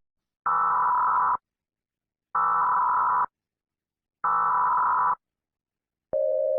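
Emergency Alert System header tones: three buzzy electronic data bursts of about a second each, evenly spaced. Near the end a steady single-pitch tone begins.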